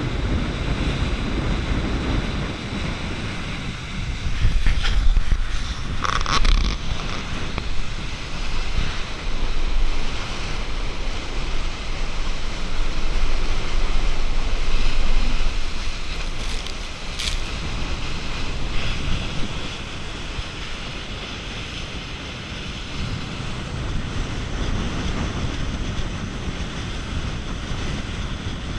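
Water rushing and spraying along the hull of a fast-running aluminium passenger boat, with heavy wind buffeting on the microphone. A few sharp splashes of spray stand out around five to seven seconds in and again around seventeen seconds in.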